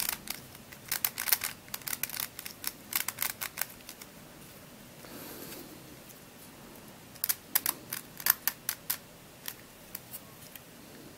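Octo Star Cube twisty puzzle being handled and twisted: irregular plastic clicks and clacks in a cluster over the first few seconds and another starting about seven seconds in, with a quieter stretch between.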